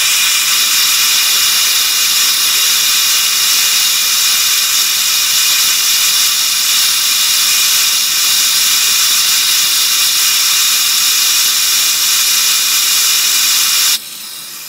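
Gas blowtorch flame burning with a loud, steady hiss as it heats a small tool-steel cutter to harden it. About fourteen seconds in, the hiss drops sharply to a much quieter level.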